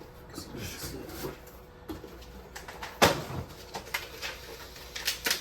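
Cardboard Funko box being handled and opened, with clicks and knocks and one sharp knock about three seconds in.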